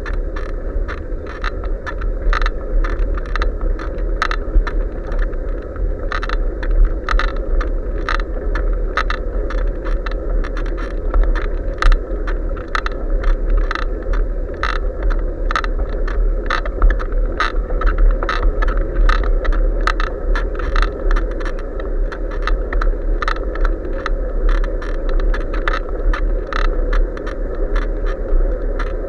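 Riding noise picked up by an action camera on a moving bicycle: a steady low wind rumble on the microphone, with irregular rattling clicks, a few a second, as the bike jolts over the road.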